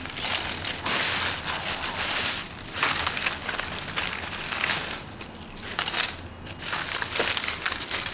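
Thin black plastic bag rustling and crinkling as it is handled, in irregular crackly bursts.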